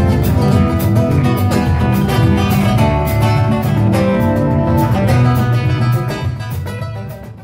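Live rumba played by a band: acoustic guitar over drums and bass, fading out near the end.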